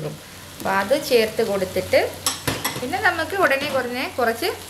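Chunks of raw potato dropped from a bowl into a steel pot of frying mutton masala, with a few sharp knocks against the pot about two seconds in.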